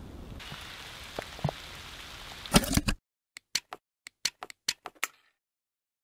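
Faint steady outdoor hiss with a few light clicks, then a quick run of loud knocks as the plastic AeroPress Go coffee maker is handled. The hiss cuts off suddenly just before halfway, and about nine short, sharp click sound effects follow over two seconds against silence.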